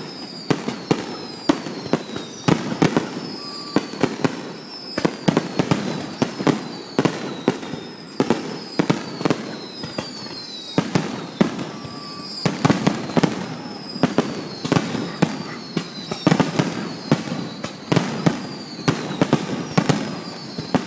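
Fireworks finale: a rapid barrage of shell bursts, several bangs a second, over crackling, with a short falling high whistle recurring about once a second.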